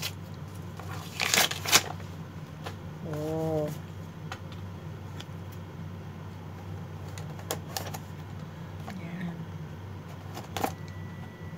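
Gift wrapping paper and sticky tape being torn and picked off a box by hand: scattered short rips, crinkles and clicks, the loudest about a second and a half in. A brief hummed voice about three seconds in, over a steady low hum.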